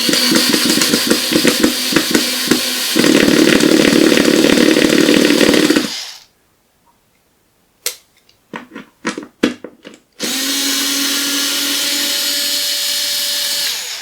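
Cordless drill/driver motor running in two bursts with a few clicks between them. The first burst starts with rapid irregular ticking, then turns louder and steadier. The second burst runs steadily with a faint whine.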